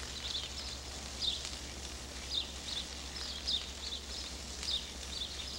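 Thick prime-rib steak sizzling in butter in a smoking-hot cast-iron skillet as it is blackened: a steady hiss with scattered little crackles and pops of spitting fat, the juices and butter browning into a crust.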